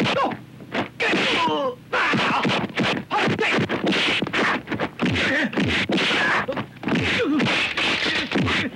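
Kung fu film fight soundtrack: a rapid run of dubbed punch and kick whacks, mixed with the fighters' shouts and grunts.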